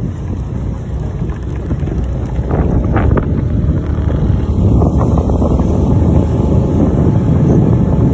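Wind buffeting a phone microphone on a moving motorcycle, with the ride's engine and road noise underneath. It grows louder about three seconds in.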